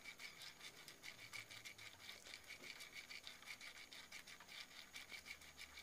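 Faint, irregular crackle of peanuts frying in a little mustard oil in a kadai.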